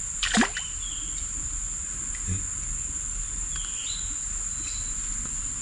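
Steady high-pitched drone of insects. A brief falling-pitched sound comes about a third of a second in, and a few short high chirps follow later.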